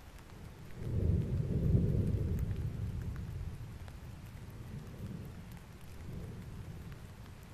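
Deep rumbling boom of a volcanic eruption as lava bursts from the summit crater, swelling suddenly about a second in and fading away over a few seconds, followed by two smaller rumbles, with a few faint crackles.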